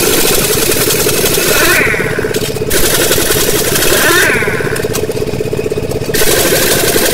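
Pneumatic impact wrench hammering on a truck's wheel nuts with a fast, steady rattle. It works in spurts of a second or two with a hiss of air, broken by short pauses.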